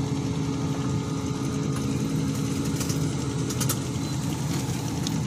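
Volvo crawler excavator's diesel engine running steadily, with a couple of light clicks about three seconds in.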